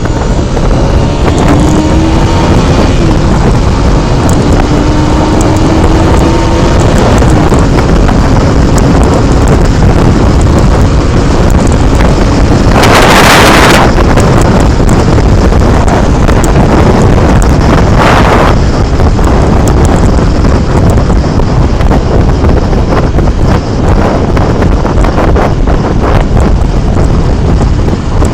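Heavy wind noise buffeting a helmet-mounted action camera's microphone on a moving Mondial HPS 125i motorcycle, with the single-cylinder 125 cc engine faintly heard rising in pitch as it accelerates in the first few seconds. About halfway through, a louder rush of noise lasts about a second.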